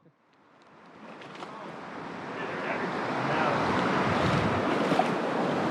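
Rushing water of the Nantahala River, a steady flowing roar that fades in over the first three seconds or so and then holds level.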